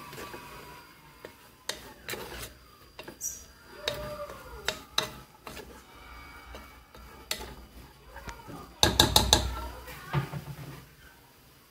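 A spoon stirring shredded chicken in a pressure-cooker pot, knocking and scraping against the pot in scattered clicks, with a quick run of about five loud knocks near the end.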